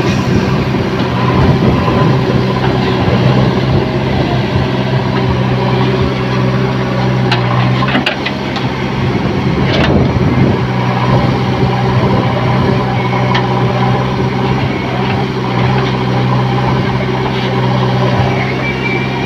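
JCB 3DX backhoe loader's diesel engine running steadily while the backhoe digs stony soil, with a few sharp knocks of the bucket against rocks about halfway through.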